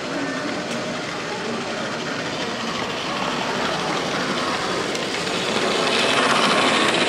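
HO-scale model passenger train, a steam locomotive hauling a rake of coaches, running past on the track with a steady noise of wheels and motor. It grows louder about six seconds in as the coaches pass closest.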